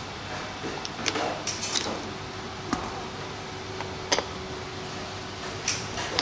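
Scattered sharp clicks and light knocks from parts and tools being handled, about seven in all, over a steady background hum.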